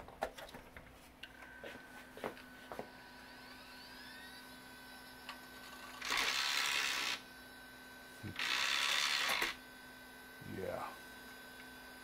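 An IDE CD-ROM drive with a broken eject gear powering up in the running computer. First come a few handling clicks, then a steady whine and a rising sweep as the drive spins up. Next come two roughly one-second whirring rushes and a brief falling whine, all over the computer's steady hum.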